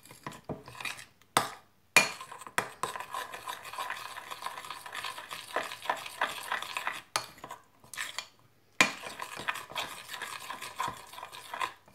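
A spoon stirring cocoa powder into pancake batter in a glass bowl, scraping and clinking against the glass, with a few sharp knocks near the start. The stirring pauses briefly about two-thirds of the way through.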